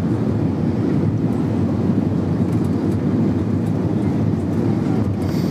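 Airbus A320 cabin noise on final descent: a steady, low hum of airflow and engines heard from inside the passenger cabin.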